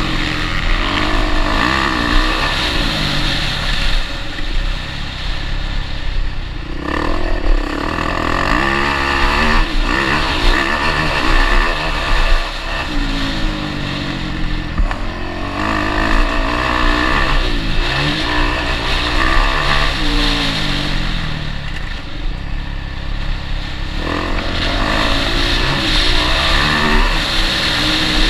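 Motocross dirt bike engine heard close up from a camera mounted on the bike, revving hard and falling back again and again as the rider accelerates, shifts and rolls off the throttle.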